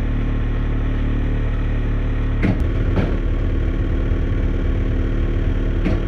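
Old Atwood RV furnace blower running with a steady low hum and a few knocks about halfway through. The sound is the blower wheel out of balance: its squirrel cage has come apart, with teeth missing.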